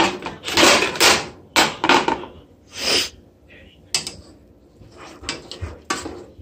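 Plastic plates being handled over a stovetop: a run of short scraping and clacking noises, several of them loud.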